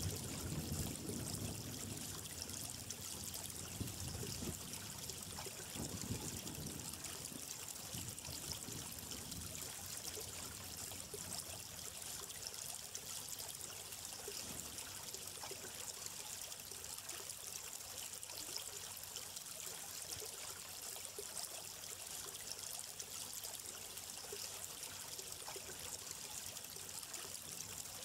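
Flowing water of a small stream trickling and splashing steadily. A deeper, louder rush in the first several seconds dies away, leaving the even trickle.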